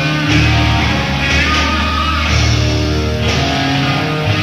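Live rock band playing: electric guitar holding long sustained notes over bass and drums, with the bass note changing about once a second, heard in an audience recording of the concert.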